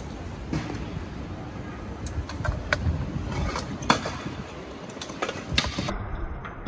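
Street hubbub with a scatter of sharp clacks and knocks from stunt scooters on stone paving, the loudest a knock about four seconds in.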